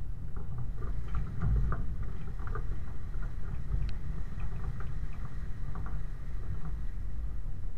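Land Rover 90 driving through a river ford, its wheels churning and splashing the water, with many short splashes over a steady low rumble.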